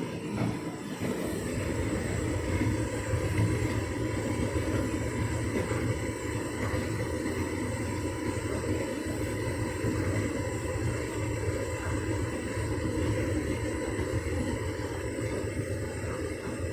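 Hotpoint Ultima S-line tumble dryer running on its Heat and Enjoy setting, the drum turning and the fan blowing warm air: a steady rumble with a faint steady hum over it.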